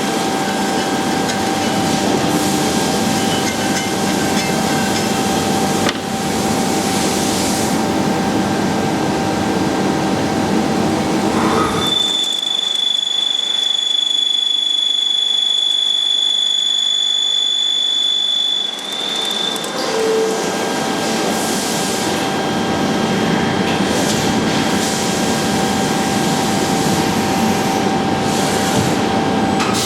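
Leadwell V-60iT five-axis CNC machining centre running, a steady whine over a noisy mechanical rumble. About twelve seconds in, the rumble drops away for about seven seconds while a high steady whine takes over.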